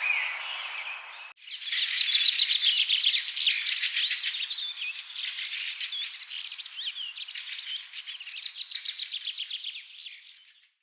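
Songbirds singing. About a second and a half in, the recording cuts to a dense, rapid twittering of many short high notes, which fades out at the end.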